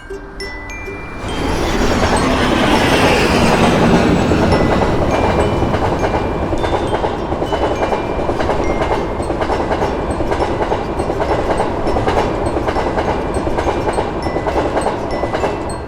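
A train passing over a level crossing, a dense rumble with rhythmic wheel clatter that swells up about a second in. Short repeated tones of the crossing's warning bell ring through it.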